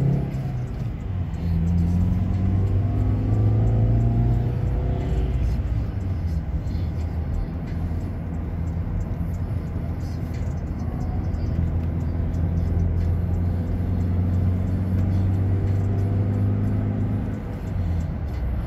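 A car driving, its engine and tyre noise heard from inside the cabin as a steady low hum.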